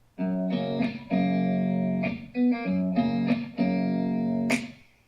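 Guitar chords in a song's instrumental opening, each chord held for about a second with short breaks between, played back through Audioengine A2+ BT powered speakers and heard at the listening position.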